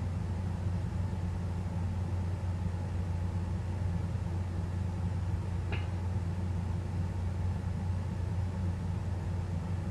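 Steady low electrical hum with hiss from the recording system, with one short faint click a little before six seconds in.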